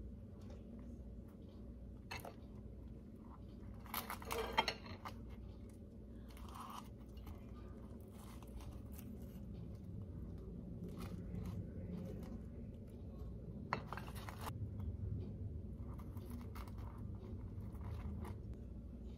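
Flaky croissant crust crackling and crunching as it is handled and cut with a knife, with small knife-and-plate scrapes. The loudest crackles come about four seconds in and again about fourteen seconds in, over a low steady hum.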